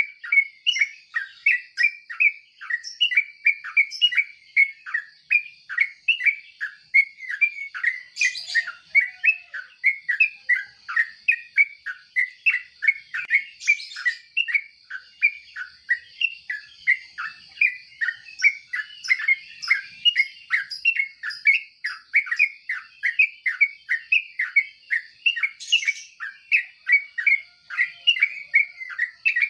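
Yellow-vented bulbul (trucuk) singing: an unbroken run of short chirping notes, two or three a second, over a faint steady high-pitched hiss.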